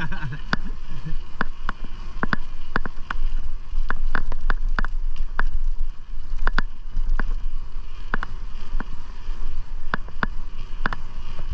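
Bicycle riding along a paved trail: a steady low rumble of wind and road noise on the bike-mounted microphone, with irregular sharp clicks and rattles about one or two a second.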